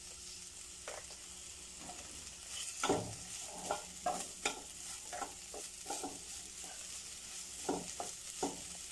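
Wooden spatula stirring a jackfruit and grated coconut filling in a nonstick pan. It makes a run of short scraping strokes, sparse at first and frequent from about three seconds in, over a faint steady sizzle from the hot pan.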